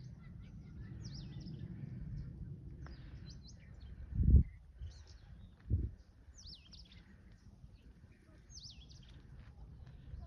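Birds singing, repeating short high phrases of quickly falling notes every second or two over a low wind-like rumble. Two loud low thumps about four and six seconds in.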